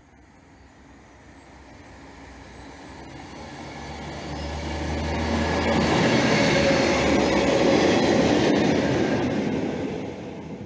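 SNCF Infra works train passing at speed, its rumble growing as it approaches, loudest about six to eight seconds in, then fading as it moves away. A low engine hum shows under the wheel noise as it comes near.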